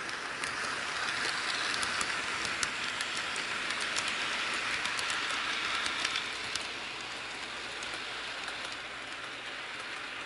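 HO scale Santa Fe diesel model freight train running on plastic sectional track: a steady rolling hiss from wheels and motor, with rapid small clicks. It is louder while the train passes close by in the first six seconds or so, then quieter as it moves away.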